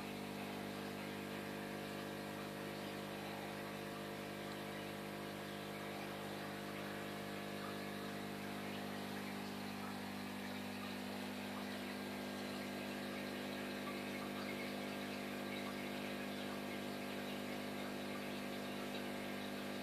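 Aquarium air pump and bubbler running: a steady electrical hum with air bubbles streaming up through the tank water.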